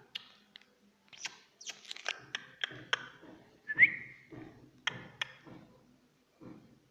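Irregular light taps and knocks, about a dozen of them, with one short whistle-like chirp that rises and then holds, about four seconds in.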